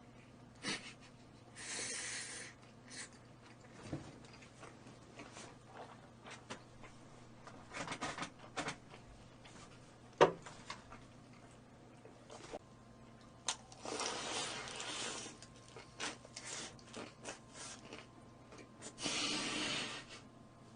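Close-miked eating sounds of roast chicken: chewing and biting with scattered small clicks and knocks, one sharp click about halfway through, and three short hissing bursts.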